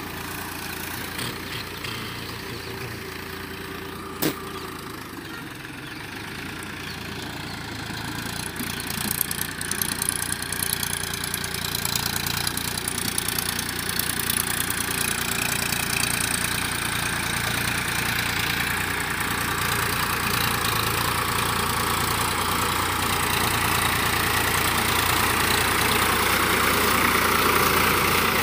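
Powertrac 439 Plus diesel tractor working a rotavator through a flooded field, its engine running steadily and growing louder as it draws near. There is one sharp click about four seconds in.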